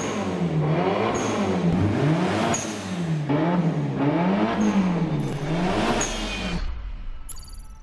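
Mitsubishi Lancer Evolution 6.5 Tommi Makinen Edition's turbocharged 4G63 inline-four being revved repeatedly. The pitch rises and falls about five times in smooth waves, then drops away near the end.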